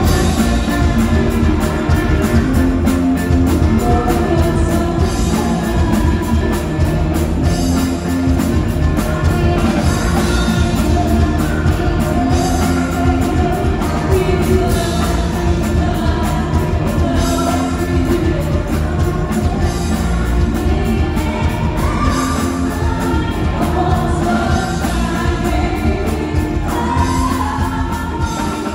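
Live band playing rock music: bass and electric guitars over a steady drum beat, with singing on top, loud in a large hall.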